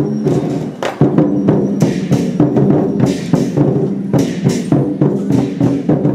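Lion-dance percussion ensemble: a drum beaten in a fast, uneven rhythm with many sharp strikes, and cymbal crashes and ringing gong tones sustained underneath.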